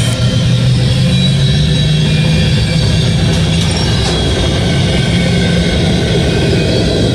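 Diesel freight train passing, with a steady low engine drone that steps up in pitch about a second in.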